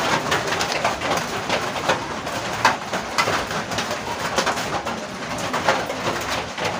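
Birds calling continuously in the background, with many short chirps.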